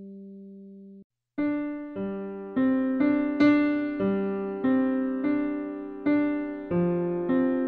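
Background piano music. A held chord fades and cuts off about a second in, and after a brief gap a new piano passage begins with evenly paced notes, each struck and left ringing away.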